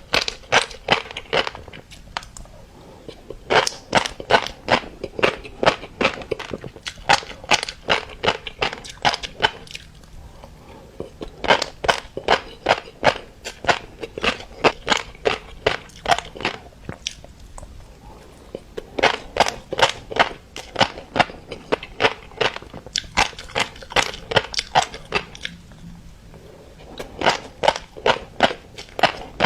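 Close-miked chewing of mixed-colour fish roe: rapid, crisp popping and crackling as the eggs burst. It comes in runs of several seconds, broken by short pauses.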